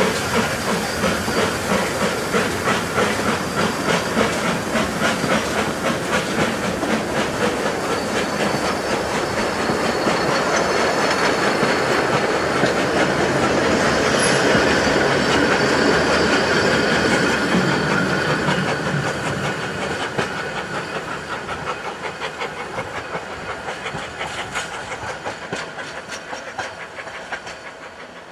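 A 3 ft gauge Beyer Peacock 2-4-0 steam tank locomotive and its train passing close by. The engine's exhaust beats come first, then the carriages roll past with their wheels clacking steadily over the rail joints, loudest midway, and the sound fades as the train draws away.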